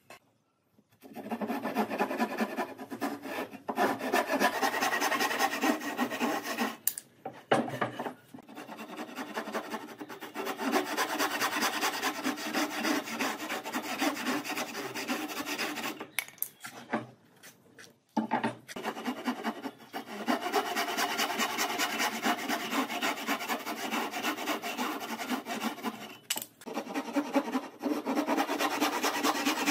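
Fine-toothed hand saw cutting through softwood boards in quick back-and-forth strokes, with three short breaks in the sawing.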